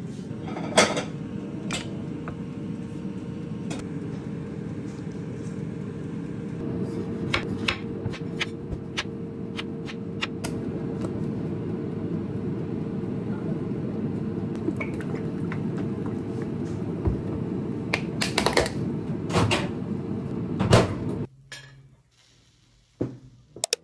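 Kitchen handling sounds: scattered knocks and clinks of bottles, glassware, dishes and utensils over a steady low hum with a faint held tone. The hum drops away about 21 seconds in, leaving a quieter room with a few light clicks.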